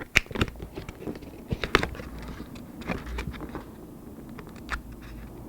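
Hands folding and pressing the scored flaps and corners of a display board, with scattered light taps, clicks and rustles of board and paper, the sharpest near the start and about two seconds in.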